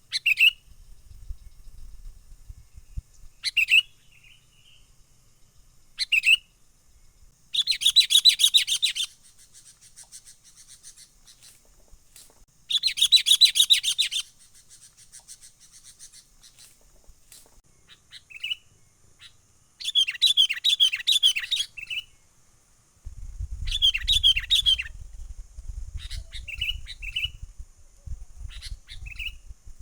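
Sooty-headed bulbuls giving the harsh, chattering 'menggaruda' alarm calls they make when mobbing a raptor. Loud rapid rattling bursts of about a second and a half come four times, between short sharp call notes. A low rumble sits under the last few seconds.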